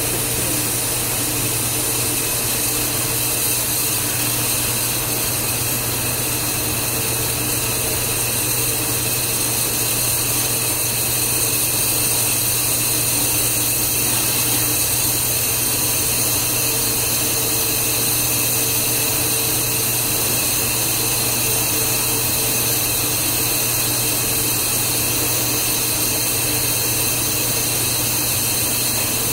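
Live steam hissing steadily through a Dunham No. 1 steam trap and out of its outlet, with a steady low hum beneath. The trap has failed to seal back up and is blowing steam through.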